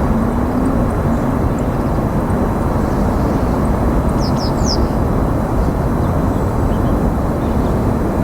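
Steady low rumble of outdoor background noise, with a small bird giving three quick, high, falling call notes about four seconds in.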